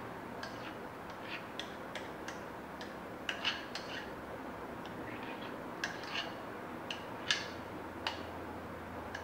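A metal spoon clicking and tapping against a mixing bowl as thick cake batter is scraped out into a cake tin. The light clicks come irregularly over a steady low hiss, and the sharpest are about three and a half and seven seconds in.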